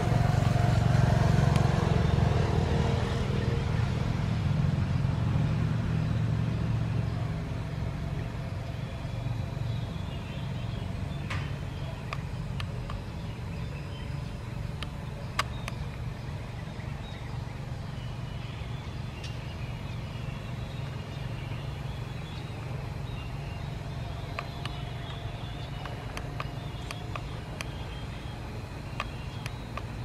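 Small DC motors and propellers of a homemade plastic-bottle remote-control boat buzzing steadily, loudest in the first few seconds and fading somewhat by about eight seconds in. A couple of faint clicks come around the middle.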